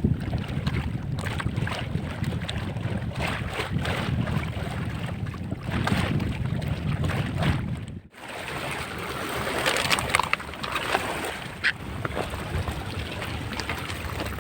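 Wind buffeting the microphone over a rush of sea water, with a sudden break about eight seconds in.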